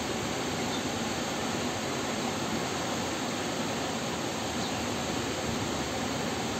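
Steady rushing noise that holds an even level throughout, with no separate knocks, tones or voices standing out.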